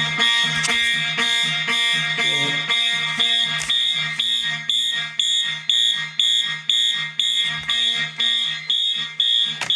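Fire alarm notification appliances sounding in march-time coding, pulsing evenly about twice a second, set off by a manual evacuation drill from the fire alarm panel. A single sharp click comes near the end.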